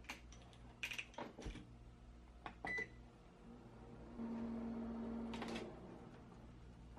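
Countertop combination microwave oven being shut and started: a few sharp clicks of the door and controls, a short electronic beep, then the oven running with a steady low hum for about a second and a half.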